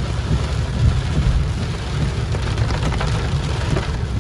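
Heavy rain falling steadily on a car, with a constant low rumble underneath.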